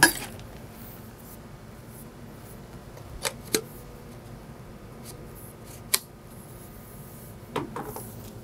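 Metal stand-up paddle shaft sections being fitted and adjusted by hand: a loud click right at the start, then a few sharp clicks and taps spaced out through the rest, with only a faint steady background between them.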